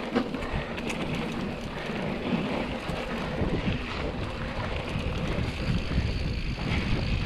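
Mountain bike riding along a sandy dirt track: steady tyre rumble with light rattles and ticks from the bike over bumps, under wind noise on the microphone.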